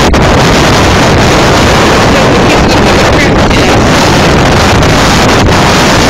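Hurricane wind buffeting a phone's microphone: loud, continuous wind noise.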